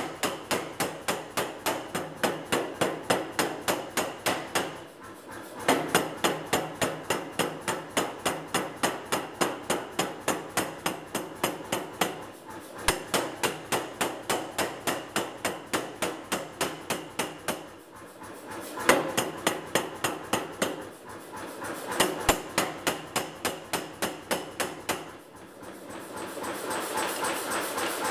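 Power hammer striking a red-hot steel bar in a tong-forging jig: a rapid run of heavy blows, about four to five a second, broken by a few short pauses.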